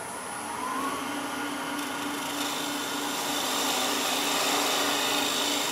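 Spindle gouge cutting the dovetail side of a tenon on a wooden blank spinning on a lathe: a steady hiss of the cut over the lathe's steady hum, slowly growing louder.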